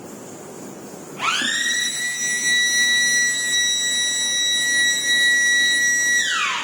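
Electric alarm siren winding up about a second in to a steady high-pitched wail, holding for about five seconds, then winding down near the end, over a low machine hum.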